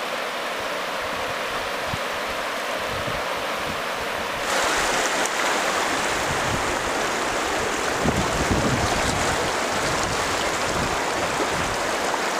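Shallow river water rushing and burbling over stones, as a steady noise that gets louder and brighter about four and a half seconds in. Low rumbles of wind on the microphone come in the second half.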